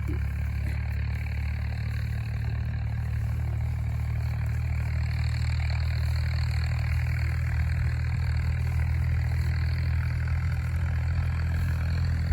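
Royal Enfield Bullet 350's single-cylinder four-stroke engine idling steadily, a constant low exhaust beat that grows slightly louder toward the end.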